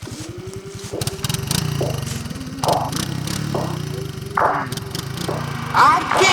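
ATV engine running steadily, with several sharp cracks and snaps.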